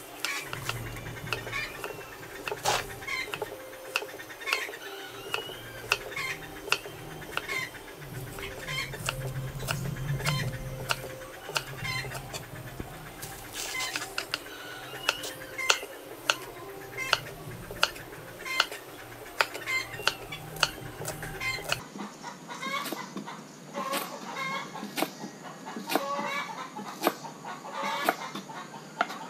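Kitchen knife chopping garlic on a wooden chopping board: a run of sharp, irregular chops, several a second at times. Chickens cluck in the background.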